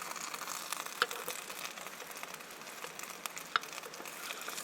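Trout and hash browns sizzling in butter in a hot pan, a steady crackly frying sound. Two sharp metal clinks of a utensil against the pan come about a second in and again near three and a half seconds in.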